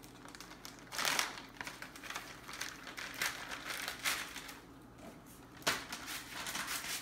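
Food packaging crinkling and rustling in irregular bursts as it is handled and opened, with a sharp click a little before the end.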